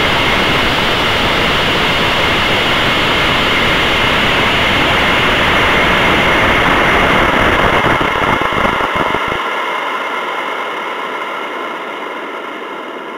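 Onboard sound of a high-power rocket in fast climb: a loud, steady rush of wind over the camera. A low rumble cuts off about nine seconds in, then the rush fades as the rocket slows toward apogee.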